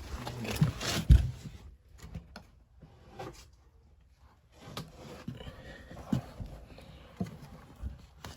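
Irregular thumps, knocks and scraping rustle of a person crawling and clambering through a crawl space, loudest about a second in, then quiet for a couple of seconds before softer knocks and rustling resume.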